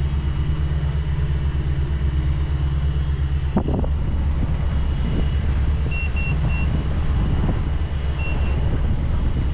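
Diesel engines of a Lagoon 450 F catamaran running steadily under way at about 2,100 RPM, a low even drone. A thump comes about three and a half seconds in, and after it the drone is rougher. Short high electronic beeps sound, three in a row around six seconds in and two more near eight seconds.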